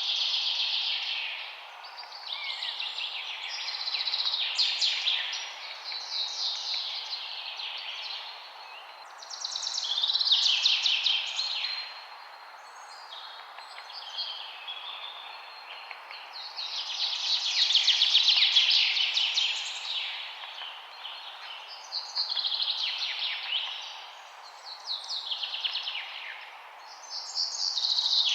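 Songbirds singing: phrases of rapid, high trilling notes that swell and fade every few seconds, over a faint steady background hiss.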